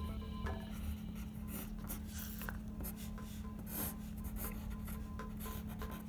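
Graphite pencil drawing on paper: irregular short scratchy strokes as lines are sketched. Quiet background music plays underneath.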